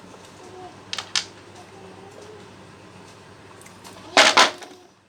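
Two light sharp taps about a second in, then two loud sharp knocks about four seconds in, over a steady low hum.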